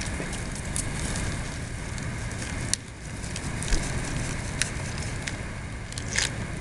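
Low steady background rumble with scattered light crackles and clicks, a few sharper ones about three, four and a half and six seconds in.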